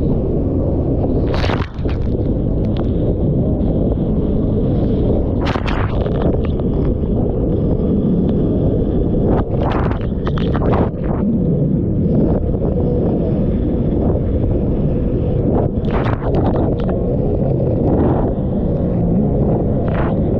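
Jet ski engine running under load as the craft rides through storm chop, with a dense rumble of wind buffeting the microphone. Several sudden splashes of spray and hull slaps break through as it hits waves.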